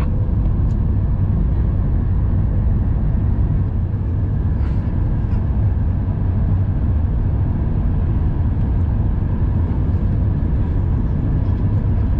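Steady low drone of cabin noise inside an Airbus A350-1000 airliner on its descent, the engines and rushing air blending into one even rumble.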